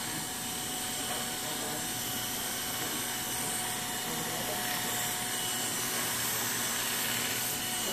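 Corded electric hair clipper running steadily, cutting hair clipper-over-comb as it is drawn along a comb. The hum is even throughout, with a faint steady high tone over it.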